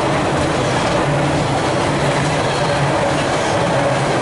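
Container flat wagons of a Freightliner intermodal freight train rolling past, a steady rumble and clatter of wheels on rail, with a faint steady tone above it.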